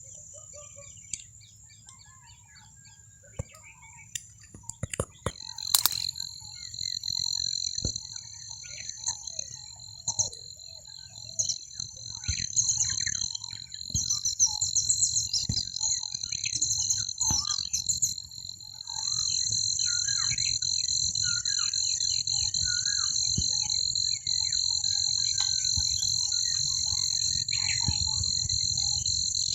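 Dawn chorus of many birds chirping and calling in short, scattered notes over a steady, high-pitched insect drone. The drone comes in about five seconds in and turns louder and unbroken about two-thirds of the way through. A few sharp clicks sound about five to six seconds in.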